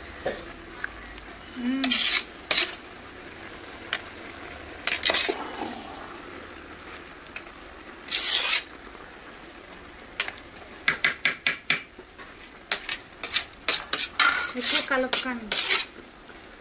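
Metal spoon stirring cooked chicken biryani rice in a large aluminium pot, scraping through the rice and clinking against the pot's side, the clinks coming quickly one after another in the last third, over a steady low hiss.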